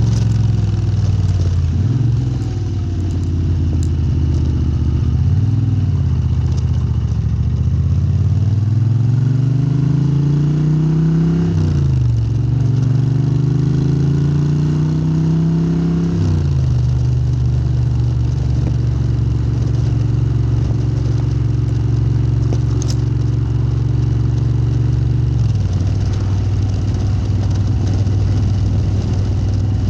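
Moto Guzzi 90-degree V-twin exhaust through Lafranconi silencers as the bike pulls away under load. The engine note climbs, drops sharply at a gear change about 12 seconds in, climbs again and drops at another shift a few seconds later. It then runs at a steady cruising note that settles a little lower near the end.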